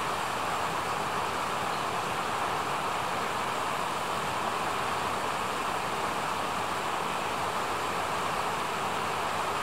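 Steady, even rushing noise, unbroken and at one level, strongest in the middle range.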